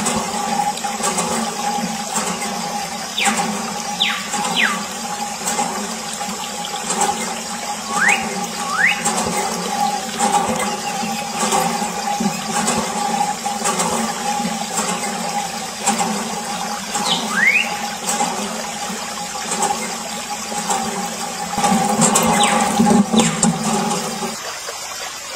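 Water pouring from a thin plastic tube and splashing over plastic toy auto-rickshaws, with a steady hum underneath that stops shortly before the end. A few short squeaky glides come and go.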